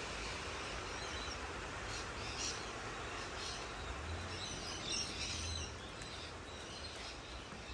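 Steady rain falling, with birds chirping through it several times, most busily around the middle.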